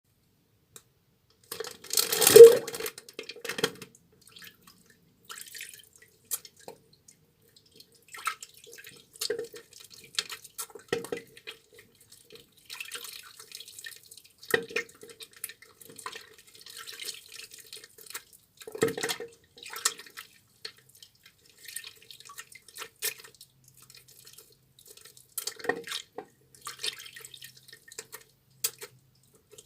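A soaked bar of tar soap being lathered in wet hands: irregular short wet squelches and clicks, the loudest about two seconds in.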